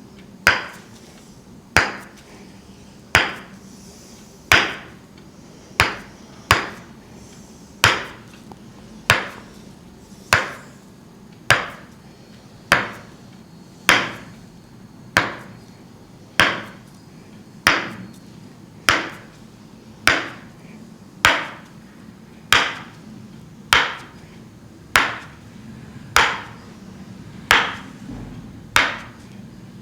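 Tok-Sen massage: a wooden mallet tapping a wooden wedge against the back. It knocks in a steady beat, about one sharp knock every second and a quarter, each dying away quickly.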